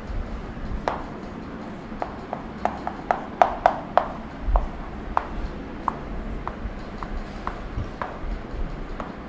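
Chalk writing on a chalkboard: a string of sharp, irregular taps and short scratches as the strokes of an equation are made.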